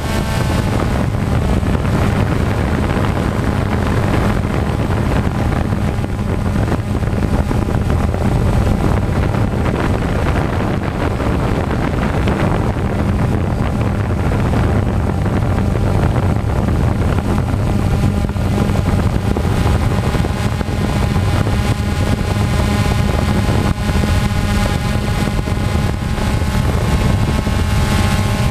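DJI Phantom quadcopter's four electric motors and propellers buzzing steadily in flight, with wind rumbling on the microphone of the GoPro mounted on it.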